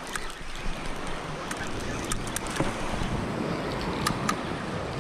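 Sea waves washing on the shore, with wind rumbling on the microphone and a few short, sharp clicks scattered through.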